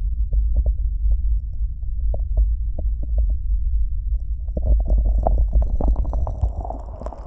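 Hands slick with Vaseline rubbing and cupping over the ears of a 3Dio binaural microphone. The covered ears give a muffled deep rumble with soft sticky clicks. From about four and a half seconds the sticky squelching gets denser, and near the end the sound turns brighter as the ears are uncovered.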